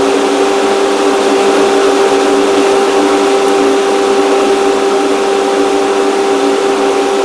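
A woodshop power tool's motor running steadily, an even hum with a constant whine.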